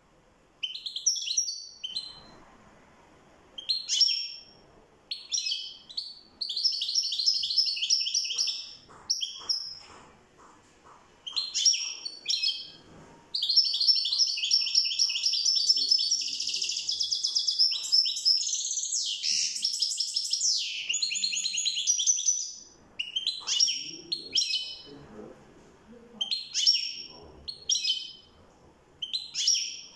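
European goldfinch singing, a fast twittering song in short phrases with pauses. Through the middle it sings one long unbroken run of about nine seconds, then goes back to short phrases.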